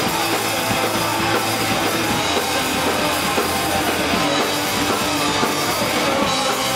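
Punk rock band playing live: electric guitars and a drum kit, loud and steady throughout.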